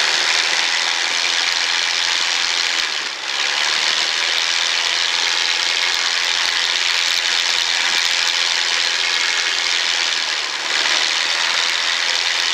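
Training airplane's piston engine and propeller run up to full power for a pre-takeoff power check, a loud steady noise without a clear pitch. It dips briefly twice.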